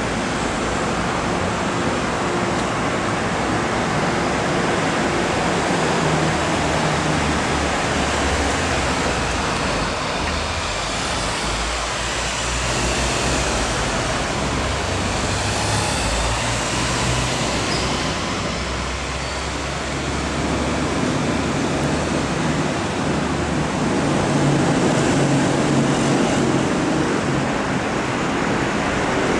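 Steady rumble of city road traffic mixed with an MTR Kwun Tong Line M-Train on the elevated track above, with faint whines that rise and fall in the middle.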